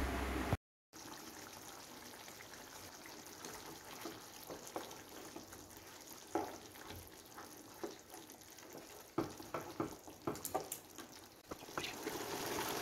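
A wooden spatula stirring simmering chicken curry gravy in a non-stick pan: soft wet clicks and pops over a faint bubbling hiss, the clicks thickest a couple of seconds before the end. The simmering hiss grows louder just before the end.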